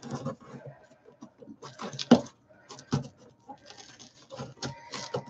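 Scissors cutting open a cardboard box along its seam: irregular clicks, snips and scrapes against the cardboard, the loudest a little after two seconds in.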